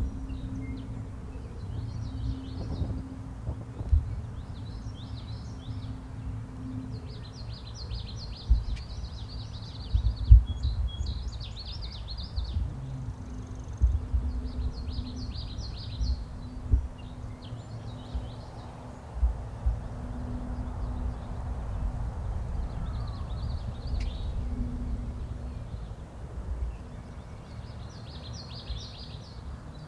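Small songbirds singing, short high trilled phrases repeated every second or two, over a steady low rumble with scattered low thumps.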